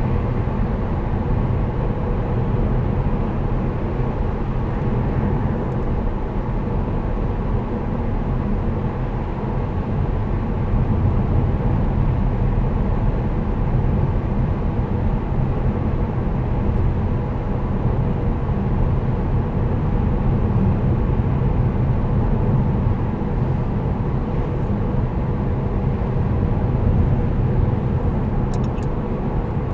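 Steady cabin noise of a 2008 Saab 9-5 2.3t BioPower cruising at motorway speed, about 85–90 km/h: a low, even rumble of tyres on the road with the engine running under light load, heard from inside the car.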